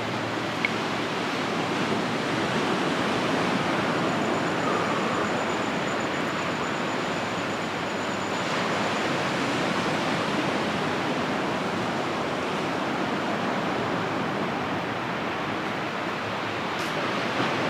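Ocean surf washing onto the beach: a steady, even rushing noise.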